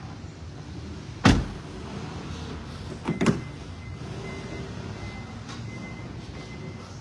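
Doors of an armored Lexus LM350 being shut: a heavy thud about a second in, then a double knock about two seconds later, over a steady low hum.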